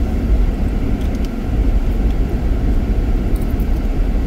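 Steady low rumble of a car's tyres and drivetrain running along a snow-covered road, heard from inside the cabin.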